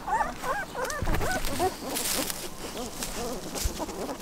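A litter of young puppies whining and squeaking in short, rising-and-falling cries as they crowd under their mother to nurse. A dull thump about a second in is the loudest moment.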